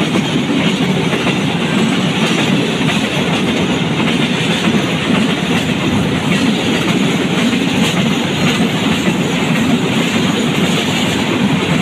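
Freight train of tank wagons rolling past close by: a loud, steady rumble of steel wheels running on the rails.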